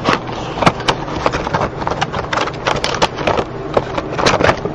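Funko Pop cardboard box and its clear plastic insert handled and pulled apart: an irregular run of sharp crackles and clicks.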